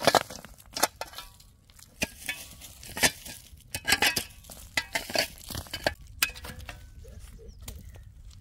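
Irregular knocks, clinks and scrapes of objects being handled, about a dozen over the stretch with quieter gaps between.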